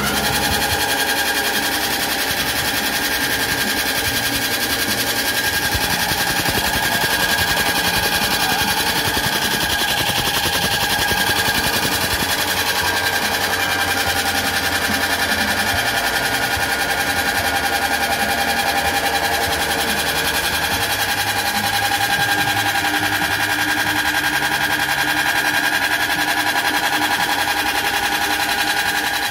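Electric soybean cracking and dehulling machine running steadily: a constant motor whine under a dense rattle of soybeans being split and their hulls separated.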